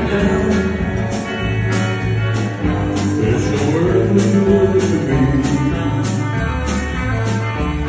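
Live band performing a country-rock song: electric guitar, bass guitar and drums with a steady beat, and a man singing into a microphone over them.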